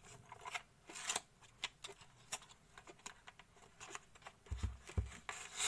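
Fingers handling a cardboard box: faint scattered clicks, taps and scrapes on the cardboard, with a few soft thumps about four and a half seconds in.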